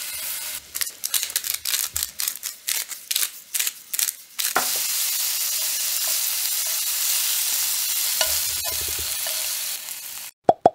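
Thin slices of beef brisket (chadolbagi) sizzling in a dry nonstick frying pan, with no oil added. The sizzle comes in choppy pieces for the first few seconds, then runs steady, and breaks off near the end into a few sharp clicks.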